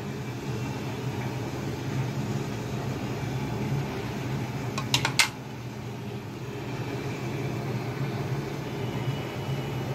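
Steady hum of an electric fan running, with a quick cluster of two or three sharp clicks about five seconds in.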